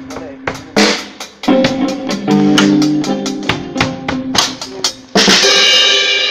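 Drum kit played with sticks: quick snare and bass-drum hits over held notes from other stage instruments. About five seconds in, a loud cymbal crash rings on.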